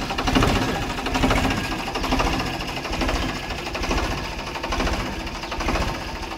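Diesel tractor engine running steadily with a rapid, even knocking beat, its exhaust feeding into a large balloon fitted over the silencer.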